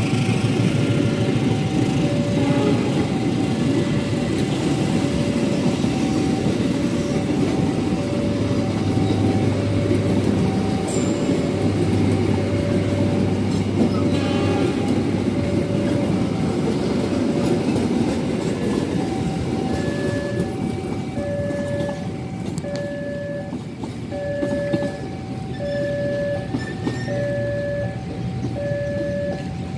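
Passenger coaches of the Mutiara Selatan train rolling past, a steady rumble of wheels on rail. Through it a level-crossing warning alarm sounds a repeating two-tone beep about once a second.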